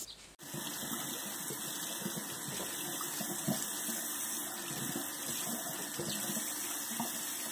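Bathroom sink faucet running in a steady stream, water splashing over hands and a chick held under it. It starts abruptly about half a second in.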